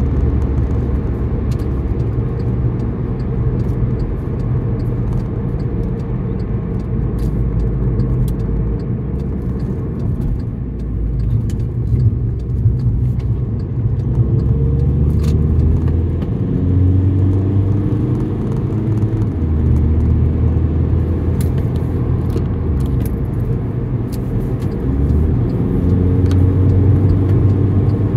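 Car driving: a steady low engine and road rumble, with the engine note rising a few times as the car speeds up.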